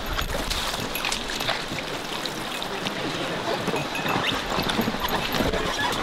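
River water rushing and splashing, with many small irregular splashes.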